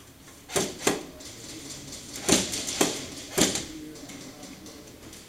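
Airsoft gunfire in an indoor room: five sharp single cracks, two close together, a pause, then three more about half a second apart, each with a short room echo.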